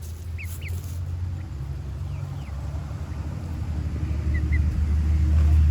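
A steady low rumble that grows louder toward the end, with a few short, faint high peeps from young chickens over it.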